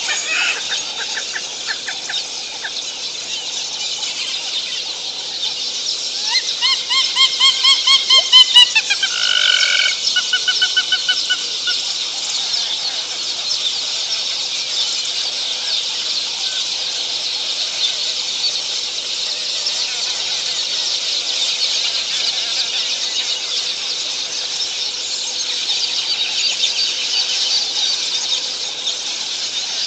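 A bird calling in a rapid run of harsh, pulsed notes that grow louder, starting about six seconds in, then a shorter, lower series just after. A steady high-pitched shrill runs underneath.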